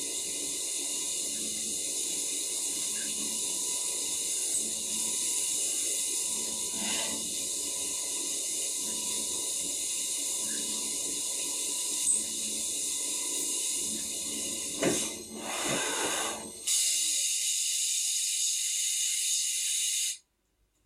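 CNC milling machine cutting holes in an aluminium plate with cooling fluid sprayed around the cutter: a steady hiss of coolant spray over the running spindle. It grows louder and rougher about 15 seconds in and cuts off suddenly near the end.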